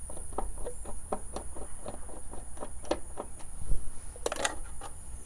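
Phillips screwdriver backing the screws out of a VW Beetle's front turn-signal lens: a run of small, quick clicks, with a louder clatter a little past four seconds in.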